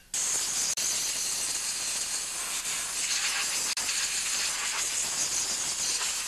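Compressed-air blow gun hissing steadily as it blows dust off a small engine around the carburetor and throttle linkage. The airflow breaks off for an instant twice, once just under a second in and once near the middle.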